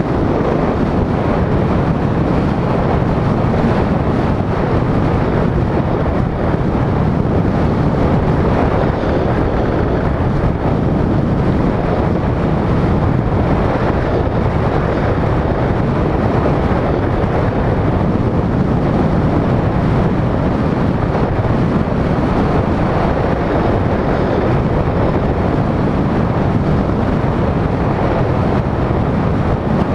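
Steady rush of wind over a vehicle-mounted GoPro's microphone, mixed with road and tyre noise at driving speed, loud and even throughout.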